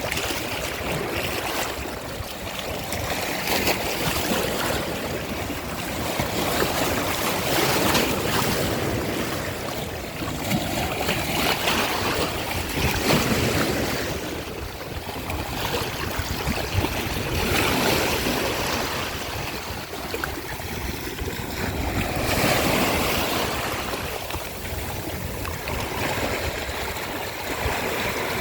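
Ocean surf washing on the shore in overlapping waves, the rush of water swelling and easing every few seconds.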